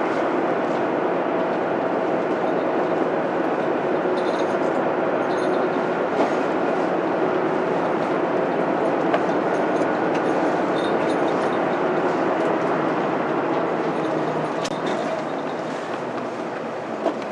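Inside a 2006 Mitsubishi Fuso Aero Star city bus under way: its 6M70 straight-six diesel runs steadily under road and cabin noise, with a few light rattles. The sound grows somewhat quieter about three seconds before the end.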